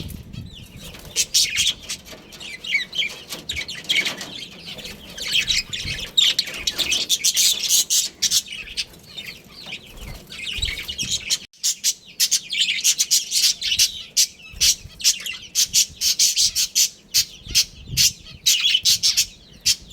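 Budgerigars chattering and chirping, a dense stream of quick high warbles and tweets from several birds, with a brief pause about halfway through.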